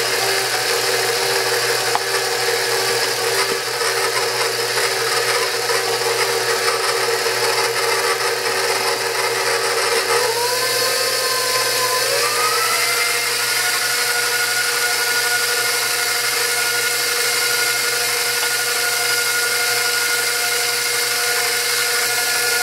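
KitchenAid stand mixer's motor running steadily as its flat beater mixes batter in a stainless steel bowl. About ten seconds in, the motor's whine rises in pitch in two steps as the speed is turned up, then holds steady at the higher speed.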